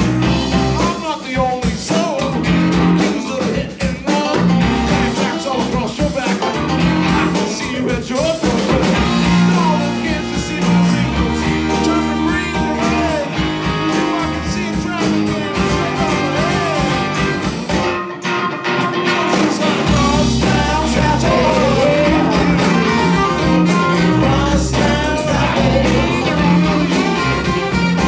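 A live blues band playing amplified through a PA, with guitar, harmonica and a singing voice over a steady bass.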